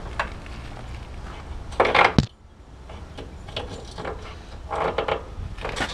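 Steel clanks and scrapes from the battery compartment of a Hyster W40Z electric pallet jack as its hold-down bar and frame are pushed and tried by hand. There are a few separate knocks; the loudest, about two seconds in, ends in a sharp click.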